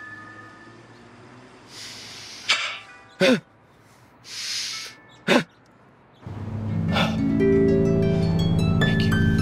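A man doing a deep-breathing exercise: two long breaths, each ending in a short, sharp exhale. About six seconds in, plucked-string music starts over a steady low bass and carries on.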